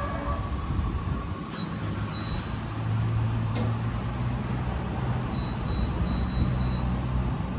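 Hydrogen fuelling station running during a fill: a steady low mechanical hum over a noisy hiss. A single sharp click comes about three and a half seconds in, and a short run of faint high beeps sounds near the end.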